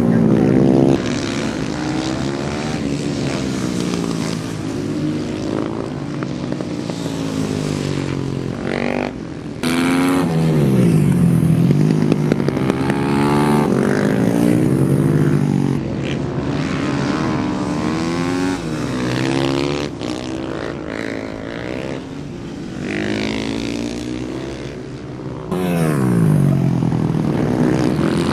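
Supermoto race motorcycles racing, their engines revving up and falling back over and over as they accelerate and brake, with more than one engine heard at a time. The sound breaks off and changes abruptly a few times.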